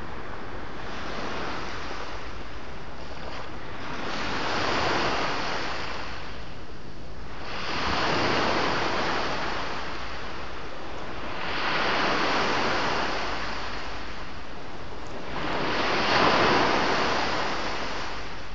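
Sea surf: waves breaking and washing ashore, swelling and fading in slow surges about every four seconds. There are four surges, and the last is the loudest.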